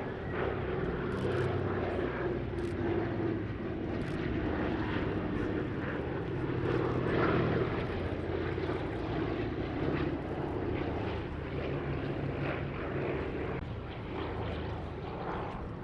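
Douglas C-47/DC-3 twin radial piston engines and propellers droning steadily in a low flypast, swelling to their loudest about halfway through.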